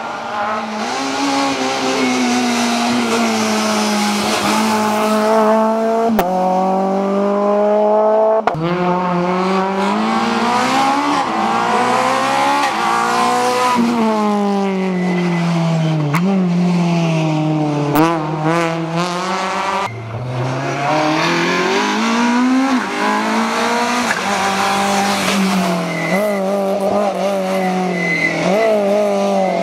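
Citroën C2 R2 rally cars driven hard, one after another: each engine revs up through the gears, then drops away sharply as the driver lifts and downshifts for the bends. The sound cuts abruptly from one car to the next a few times.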